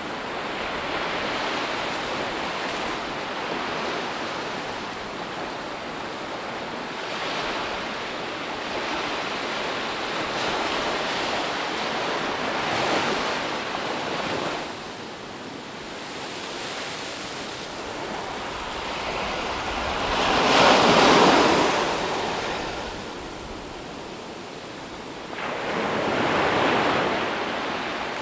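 Ocean waves breaking and washing on a shore, a steady surf with swells that rise and fall; the biggest wave crashes about two-thirds of the way through, and another follows near the end.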